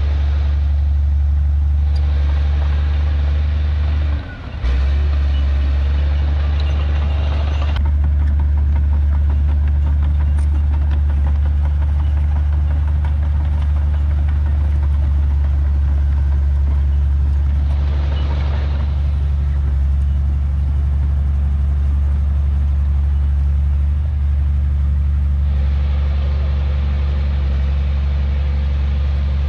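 Heavy diesel engine of an earthmoving machine running steadily with a deep, even hum. A rougher mechanical noise rises over it from about 2 to 8 seconds in, briefly near 18 seconds and again near the end.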